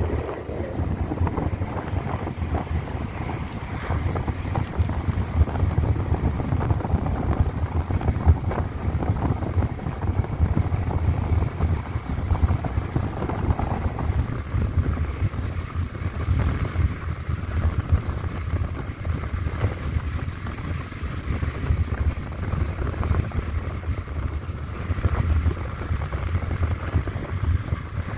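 Wind buffeting the microphone of a moving motorbike, a steady low rumble over the bike's engine and road noise.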